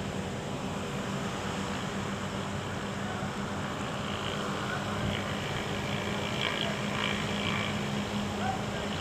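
Steady rush of storm wind, with a low constant hum underneath.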